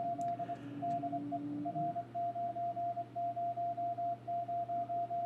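CW Morse code signal heard through a Yaesu FTDX 3000 HF transceiver: a single steady tone keyed on and off in dots and dashes as a station sends its call sign. A fainter, lower steady tone sits under it and stops about two seconds in.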